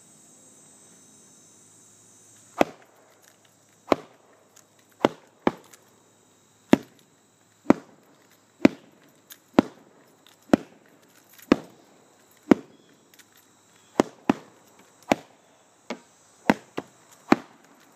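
Lightweight synthetic composite Blackswift stick striking a heavy punching bag: about eighteen sharp smacks, roughly one a second, a few of them in quick pairs.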